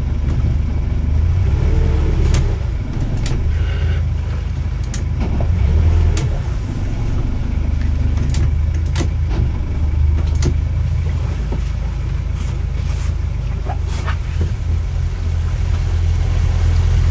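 Motorboat's inboard engine running steadily under way, a low hum with a few faint ticks over it.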